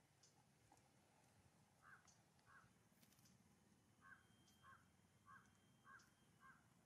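A bird calling faintly: two short calls, then a run of five short calls about half a second apart, over near-silent background.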